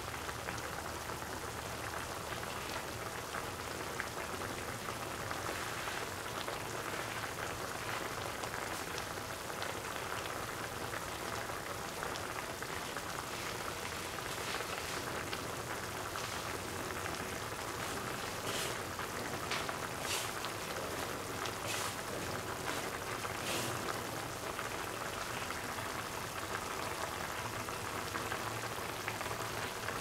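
Prawn curry simmering in a pan: a steady bubbling crackle, with a few sharper pops in the second half.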